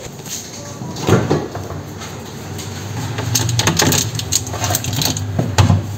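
Things being moved around in an open refrigerator: knocks and clicks of plastic containers and bottles being shifted on the shelves. There is a knock about a second in, and a low steady hum under the clattering in the second half.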